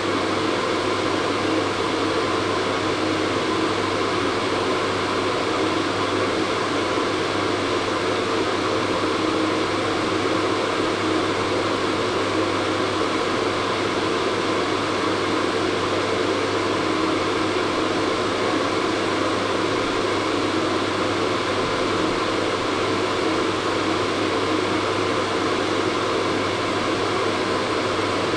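Hair dryer running steadily: a constant rush of blown air over an even motor hum, with no change in speed.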